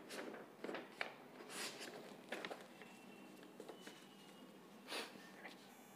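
Faint, scattered rustles and light taps of printed book pages being shifted and handled by hand, loudest about five seconds in.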